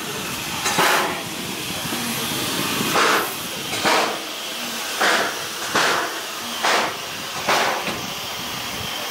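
Steam locomotive exhaust chuffing as the engine gets under way. About seven sharp hissing chuffs come closer and closer together over a steady background hiss.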